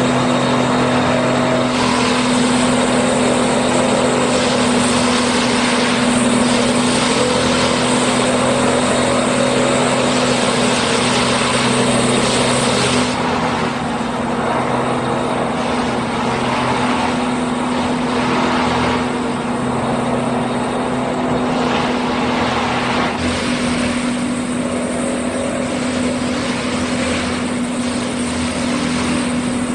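An engine running steadily at one constant pitch, under a broad rushing noise that eases somewhat about thirteen seconds in.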